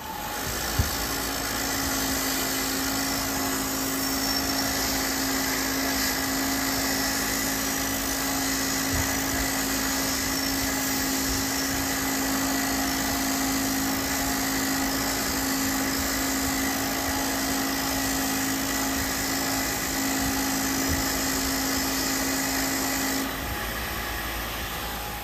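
Bench grinder with a wire wheel running steadily, an aluminium piston held against the wheel to clean it: a steady motor hum under a dense, even scrubbing hiss. It comes up to full level in the first second.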